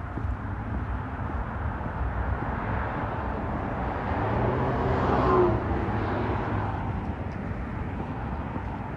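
Street traffic rumbling steadily, with one vehicle driving past: its engine sound swells to a peak about halfway through, then drops away quickly.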